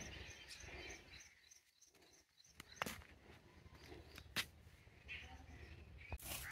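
Near silence: faint outdoor ambience with soft bird chirps and a couple of small clicks.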